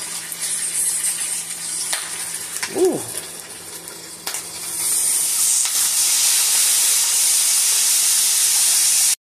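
A few light clicks, then sliced hot dogs go into an oiled stainless steel frying pan about four and a half seconds in and sizzle steadily in the hot oil.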